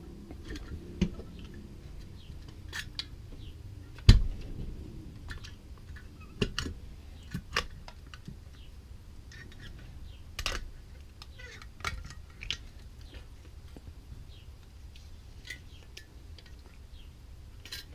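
Irregular clicks and clinks of hand tools and small metal parts during the disassembly of an Edelbrock carburetor, with a louder knock about four seconds in.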